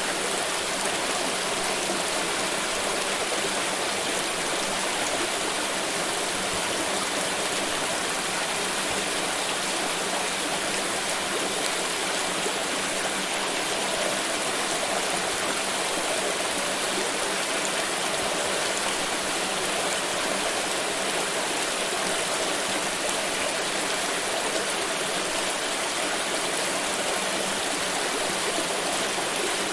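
Water pouring and splashing in a continuous, steady rush, with no breaks or changes.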